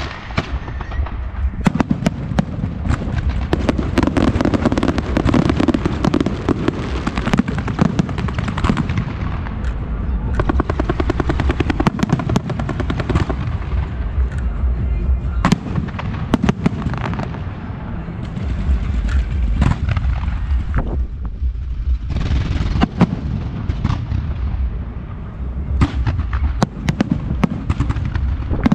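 Fireworks going off: dense crackling and popping with many sharp bangs of bursting shells over a steady low rumble.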